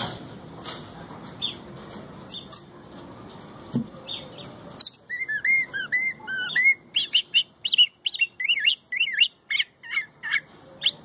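Caged thrasher (cuitlacoche) singing: after a few scattered faint chips and clicks, a fast run of varied, arching whistled notes starts about five seconds in and carries on.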